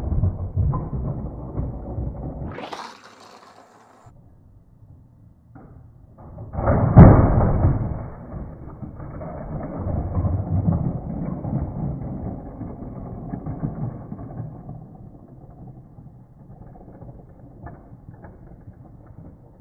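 A battery-powered toy Thomas engine's geared motor runs with a rattle over the plastic track and its toothed loop section. It stops about two and a half seconds in with a brief rising whine. It comes back loud with a clatter about seven seconds in, then runs on and fades slowly.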